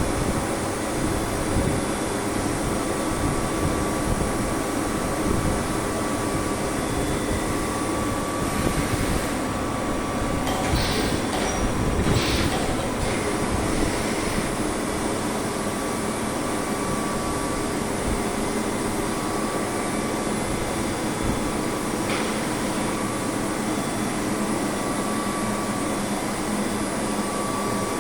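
CNC milling machine running: a steady mechanical noise with faint high whines that come and go, and a brief louder stretch about ten to thirteen seconds in.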